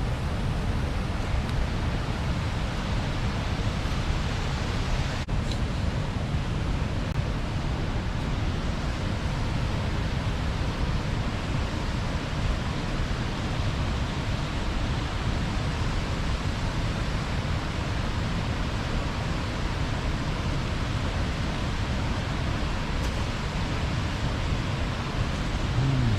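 Steady rush of river water pouring over a small weir, an even noise that holds constant throughout.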